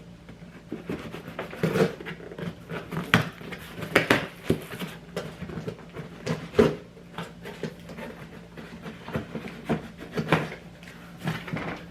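A box being opened and its packaging handled by hand: irregular taps, knocks, scrapes and crinkles of cardboard and plastic.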